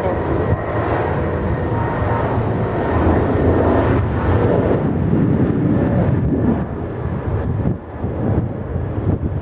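Jet airliner's engines rumbling as it passes, loudest from about three to six seconds in and easing off toward the end.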